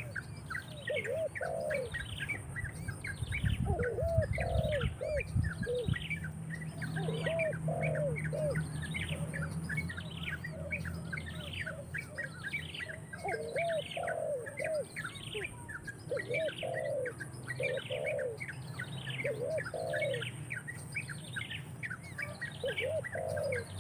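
Birds calling: a high, downward-sweeping call repeats steadily about once every three-quarters of a second, while lower short calls come in small groups of three or four. A brief low rumble comes about four seconds in.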